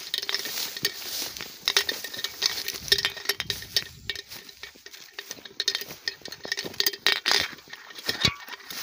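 Footsteps through dry straw, grass and weeds: irregular crackling and rustling of stems underfoot.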